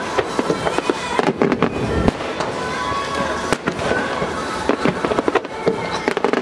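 Aerial firework shells bursting in rapid succession, with repeated sharp bangs and crackle throughout.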